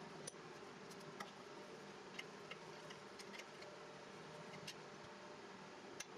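Near silence broken by about ten faint, irregular light clicks and taps: the metal parts of a cast-iron Wilton bench vise being handled.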